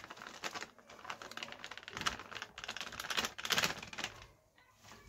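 Plastic packet of sattu crinkling and rustling in the hand as the flour is shaken out onto a plate, a dense run of small crackles that dies away about four seconds in.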